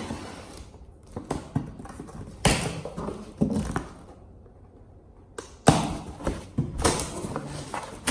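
A cardboard box being opened and its packed contents handled: irregular rustling, scraping and knocks, with a short pause about halfway through.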